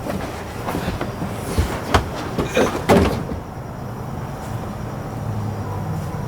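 A car's floor carpet being handled and fitted into a stripped car interior: a string of knocks, scrapes and rustles in the first three seconds, then a steady low hum behind.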